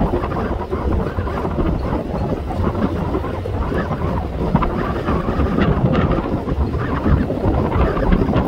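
Wind blowing hard across the microphone: a heavy, steady rush with gusts, strongest in the low end.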